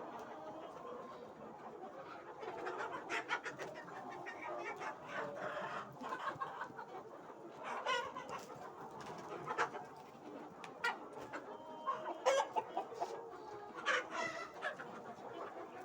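A flock of aseel-cross country chickens clucking, with many short calls overlapping throughout.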